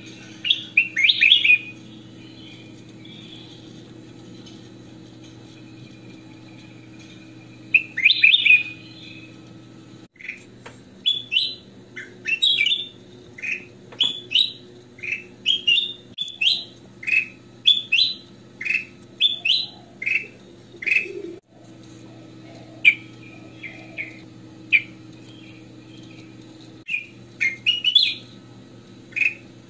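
Ruby-throated bulbul (kutilang emas) singing in short bursts of quick sweeping whistled notes: two brief bursts at first, then a long rapid run of repeated phrases through the middle, and a few more near the end. A steady low hum runs underneath.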